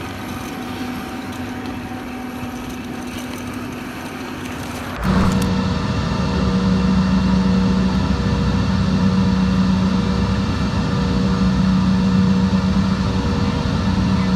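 Steady vehicle engine drone. About five seconds in it steps up abruptly and becomes louder, with a strong low steady hum that then holds.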